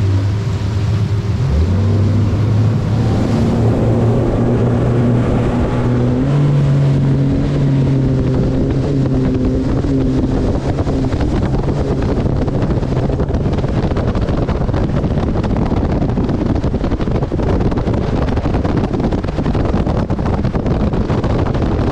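Bass boat's outboard motor running at speed, its drone rising in pitch in a few steps over the first six seconds, under heavy wind on the microphone and water rushing past the hull.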